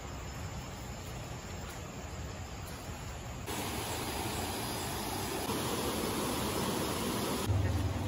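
Steady hiss of outdoor background noise, which steps up louder about three and a half seconds in, with a low rumble joining near the end.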